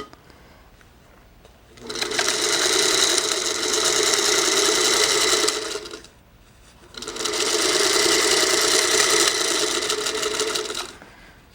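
Sewing machine stitching a quilt seam in two runs of about four seconds each, stopping for about a second in between: a couple of inches sewn at a time, pausing to readjust the fabric.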